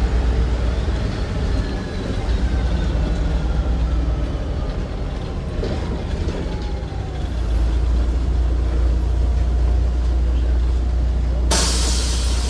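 Inside a MAZ-203 city bus: the engine and drivetrain run with a faint falling whine as the bus slows, then settle into a steady idle rumble about halfway through. Near the end a sudden loud hiss of compressed air comes from the bus's pneumatic system.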